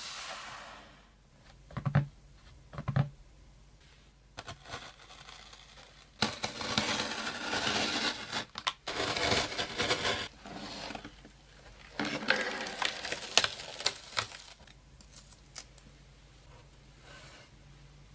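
Smartphone retail box being unboxed: two soft knocks, then two long stretches of tearing and rustling packaging, with a few light clicks near the end.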